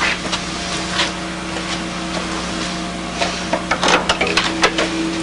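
Steady electrical hum and tape hiss, with a quick run of clicks and rubbing noises about three to four and a half seconds in, as the camcorder is handled and moved in the dark.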